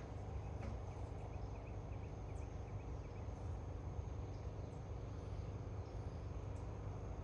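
Outdoor garden ambience: a steady low rumble with a small bird twittering a quick run of short, faint, high chirps about two seconds in, over a thin steady high-pitched whine.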